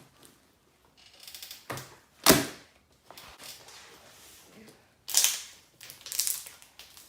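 Jiggly glue-and-water slime being stretched and squeezed by hand, giving a run of wet clicks and crackles, with the loudest pop about two seconds in and another cluster around five to six seconds in.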